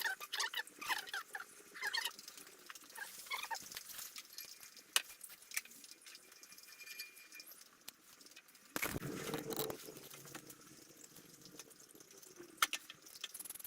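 Scattered small clicks and taps of tools and metal parts being handled, with a louder scraping or rustling burst lasting about a second, about nine seconds in.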